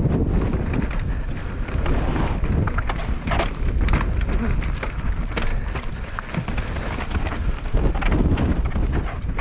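Mountain bike riding down a dirt trail: tyres rolling over the ground, with many short rattles and clicks from the bike over bumps. Wind buffets the microphone as a heavy low rumble throughout.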